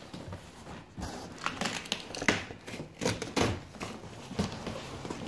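Large cardboard box being opened and handled: flaps scraping and rustling, with crinkling packing in irregular bursts.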